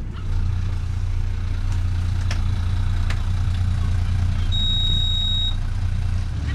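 Small motor boat's engine running with a steady low drone while under way. A single short high beep sounds about halfway through.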